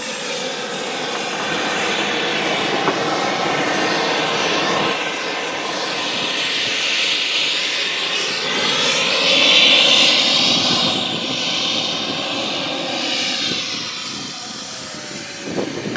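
KingTech K-260 jet turbine of a giant radio-controlled F-86 Sabre, running with a steady rush and whine. It swells to its loudest about ten seconds in, then eases off with the pitch falling, as in a pass by.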